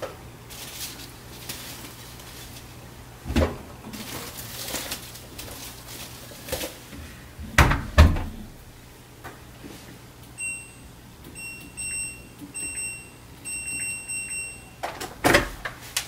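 Laundry being pushed into a front-loading washing machine's drum with cloth rustling and soft knocks, then the door shut with two thumps about eight seconds in. The control panel then gives a run of short electronic beeps as its buttons are pressed, the last beep longer, followed by a loud knock near the end.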